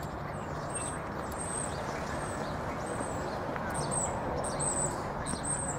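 Small birds chirping: a string of short, high chirps that come more often near the end, over a steady background noise outdoors.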